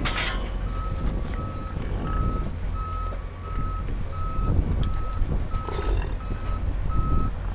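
A vehicle's reversing alarm beeping steadily, about three beeps every two seconds, over a low steady rumble.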